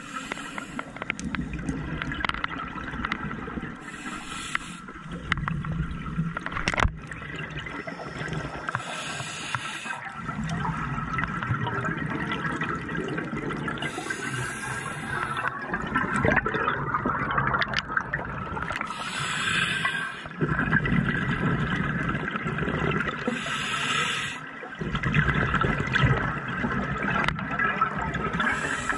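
A scuba diver breathing through a regulator underwater: a hiss on each inhale about every five seconds, followed each time by a rush of exhaled bubbles lasting a few seconds. A faint steady whine runs underneath.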